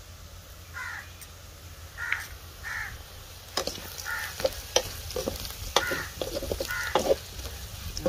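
Perforated steel ladle scraping and clinking against an aluminium kadai while stirring onions and spice powders frying in oil, starting about halfway through, over a faint sizzle. Crows caw repeatedly in the background throughout.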